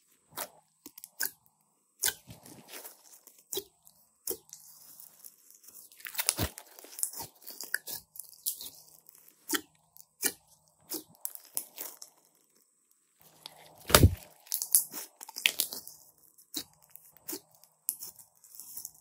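Hands kneading and squishing a large soft, glossy slime mixed with small beads: irregular crackling clicks and wet pops, with one louder, deeper pop about three-quarters of the way through.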